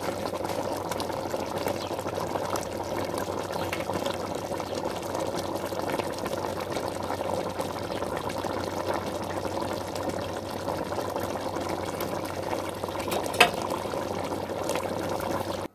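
Thick tomato-based chicken stew simmering in a metal pot, a steady dense bubbling with small pops throughout. One sharp click about thirteen seconds in is the loudest moment.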